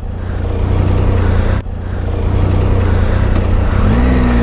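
Motorcycle engine idling with a steady low hum. Near the end an engine note rises in pitch and holds.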